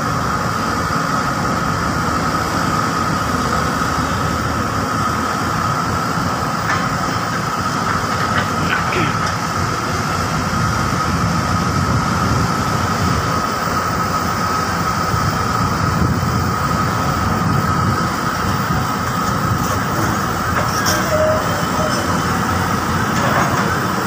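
Diesel engines of a CAT wheeled excavator and a Hyundai crawler excavator running steadily under digging work, with a continuous whine over the low engine rumble.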